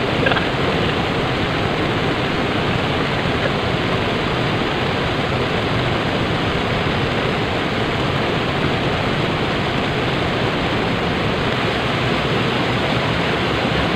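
Steady rushing of river water, an even, unbroken noise.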